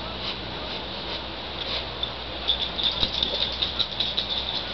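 Cairn terrier sniffing hard at a burrow. About two and a half seconds in comes a quick run of short sniffs, several a second, lasting about two seconds.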